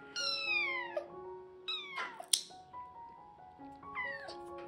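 Young kitten meowing three times while held for a nail trim, each meow a high cry falling in pitch, the first one long. A single sharp click comes about halfway through. Background music plays underneath.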